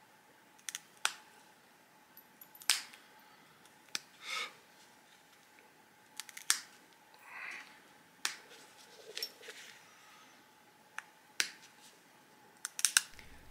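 Pressure flaking with a hand-held notching tool on a stone edge: sharp clicks and snaps at irregular intervals as small flakes pop off while notches are pressed into a denticulate, with a couple of short scraping sounds between.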